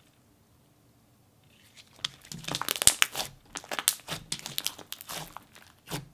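Thick purple jelly cube slime with glitter being squished and kneaded by hand, giving rapid irregular crackles and pops that start about two seconds in after a near-silent stretch.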